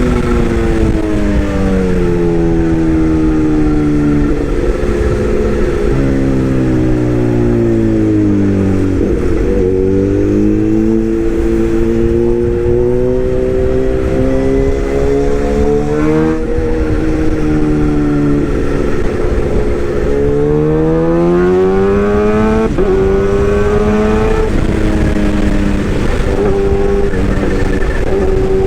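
Hydraulic excavator's diesel engine running, its pitch repeatedly rising and falling over a few seconds at a time as the engine speeds up and slows under load.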